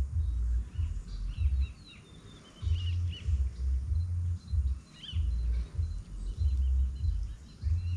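Wind buffeting the microphone in uneven gusts, with birds chirping in the background, mostly in the first half.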